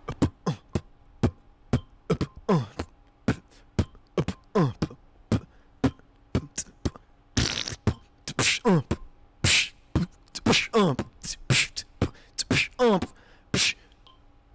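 Beatboxing: a mouth-made beat of sharp percussive clicks and hisses in a steady rhythm, mixed with short falling bass tones.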